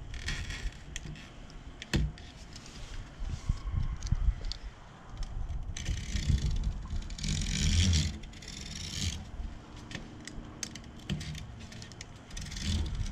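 Irregular rustling and scraping with scattered sharp clicks and low bumps: hand work on a screen door, handling the mesh, spline and tools against the frame.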